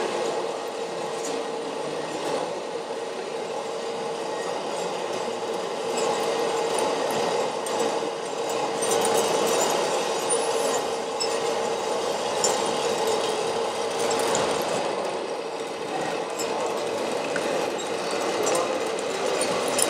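Small electric motors and gearing of radio-controlled model construction machines whirring steadily over a constant hum, with scattered light clicks.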